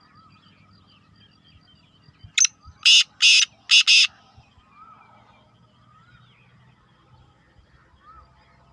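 Black francolin (kala teetar) calling: a short first note about two and a half seconds in, then four loud harsh notes in quick succession, the last two close together.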